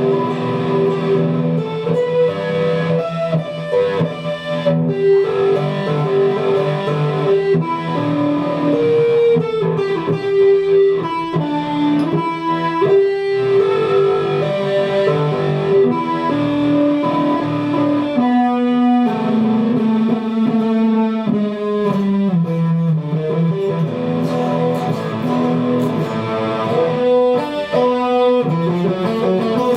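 Guitar music: a melody of held notes moving over steady lower notes, playing continuously.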